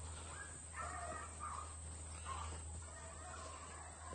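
Hounds running a rabbit, baying faintly in a loose, irregular string of calls.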